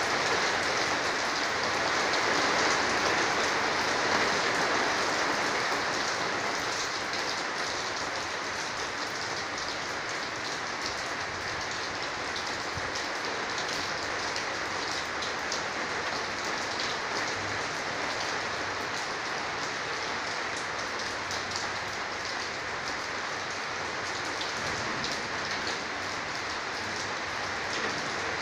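Storm rain falling steadily: a dense hiss dotted with the small ticks of drops striking, a little louder in the first few seconds.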